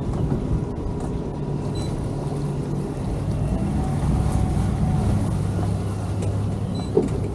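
Twin outboard motors of a center-console towboat running at low speed in gear, a little louder from about four seconds in as the boat pulls away. A short knock near the end.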